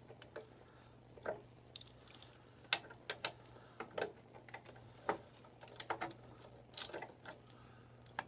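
Scattered, irregular light clicks and knocks of hand tools and parts being handled while working on a motorcycle's front brakes and wheel, about a dozen in all.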